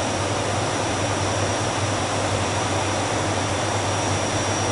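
Aircraft engines droning steadily inside the cabin in flight: a constant rushing noise with a low hum and a thin high whine.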